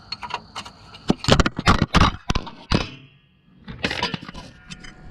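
A series of sharp knocks and clatters as the camera falls off its mount and hits the ground, then a muffled moment and a few more knocks as it settles.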